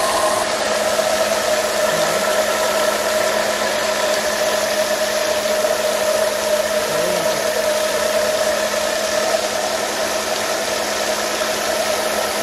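Homemade water turbine spinning fast under a jet of water from a pipe, belt-driving a generator that is lighting a bulb. A steady mechanical whine runs over the hiss and splatter of spraying water.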